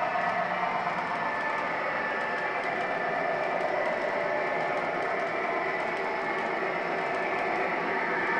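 O-gauge model freight train running past on three-rail track: a steady rolling rumble of wheels on the rails with a faint high whine.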